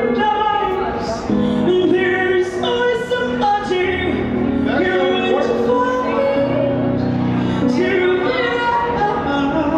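A teenage girl singing into a handheld microphone, amplified through a small portable speaker, holding long notes and sliding between them.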